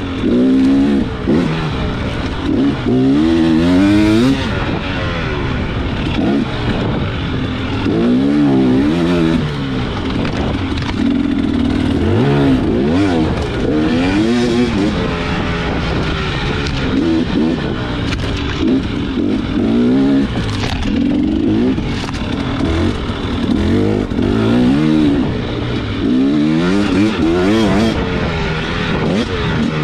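Enduro dirt bike engine under race load, its revs climbing and dropping over and over as the throttle is worked, over steady wind and ground noise.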